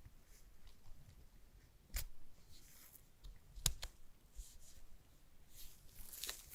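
Faint handling noise from unboxing a smartphone and its packaging: soft rustling, with a sharp click about two seconds in and a louder one just past the middle.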